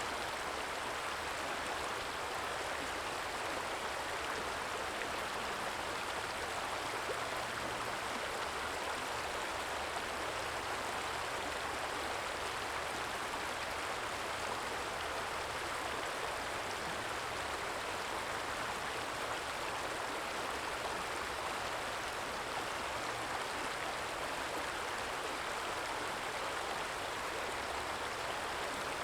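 Small stream trickling and flowing steadily, an even water noise with no pauses.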